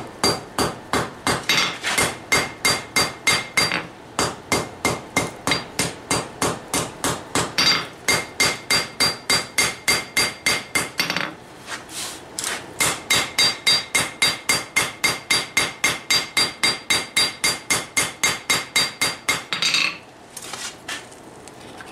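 Hammer blows on hot steel over an anvil, drawing down a knife point: a fast, even run of about four ringing strikes a second. They ease off briefly in the middle, pick up again, and stop about two seconds before the end.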